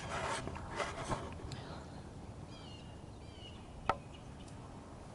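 Outdoor ambience with a few short bird chirps around the middle, some scuffing noise in the first second or so, and a single sharp click a little before four seconds in.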